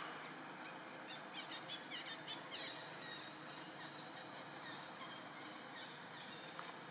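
A quick run of short, high-pitched chirping calls from an animal, about a dozen between one and two and a half seconds in, then a few scattered fainter ones, over a steady outdoor hiss.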